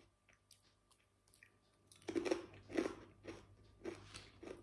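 Thick-cut San Carlo 1936 potato chips being bitten and chewed: after about two seconds of quiet, a quick run of six or seven crisp crunches.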